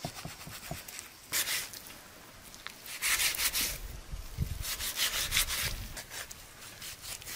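A knife cutting raw lamb shoulder meat away from the bone on a wooden cutting board, with three main scraping, rasping strokes of the blade and a few light knocks in between.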